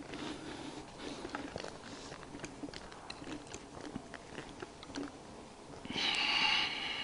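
Water deer giving one hoarse, rough bark lasting about a second near the end, over scattered small crunching footsteps on gravel and debris.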